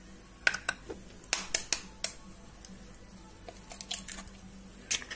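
Eggs being cracked against a glass bowl and broken open by hand: a scattering of short, sharp taps and shell cracks, loudest around one and a half to two seconds in and again near the end.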